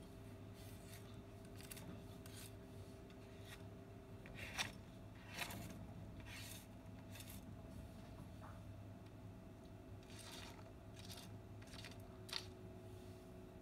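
Dry pet-food kibble clicking and scraping on a hard floor as a metal tool pushes through it. The short clicks are scattered, the loudest about four and a half seconds in, over a faint steady hum.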